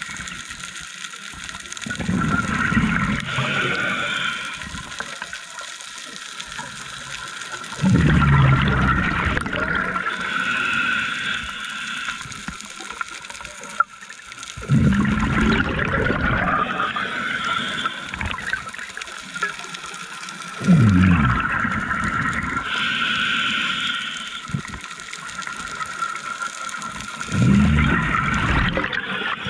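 A scuba diver breathing through a regulator underwater: a gurgling rush of exhaled bubbles comes about every six seconds, five times, with a thinner hiss from the regulator between them.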